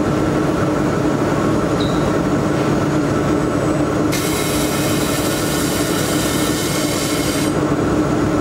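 1 kW automatic fiber laser welding machine: a steady machine drone, joined about four seconds in by a loud hiss that lasts about three and a half seconds while the laser welds a seam in 1 mm brass sheet.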